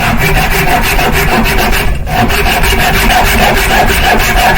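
Rapid, even back-and-forth strokes of a hand tool rubbing on wood, with a brief break about two seconds in.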